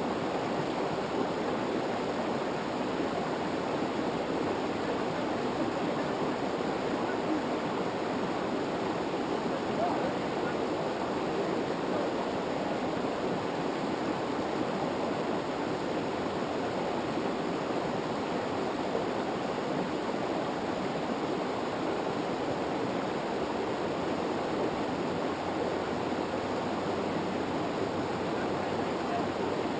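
Steady rush of river water tumbling over rocks in rapids or a waterfall, an even, unbroken noise.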